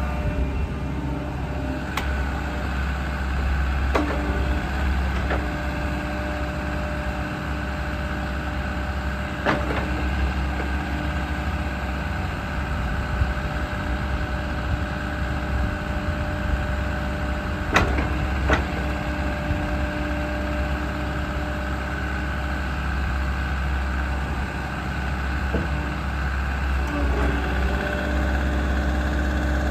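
JCB 85Z-2 midi excavator's diesel engine running steadily while its hydraulics work the boom, arm and bucket, with steady whining tones that shift as the controls are moved. A few sharp knocks now and then.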